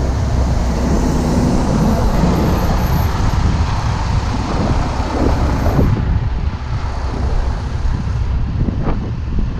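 Heavy-duty diesel truck engines running at idle close by: a loud, steady low rumble.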